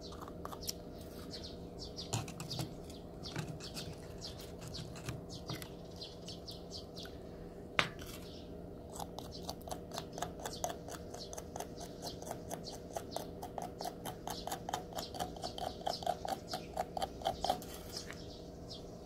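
Metal tweezers scraping and picking at an abalone shell: a run of small clicks and scratches, with one sharper click about eight seconds in and a faster, denser series in the second half. The shell's outer crust has been softened by about four hours of treatment and is being worked loose. A steady low hum runs underneath.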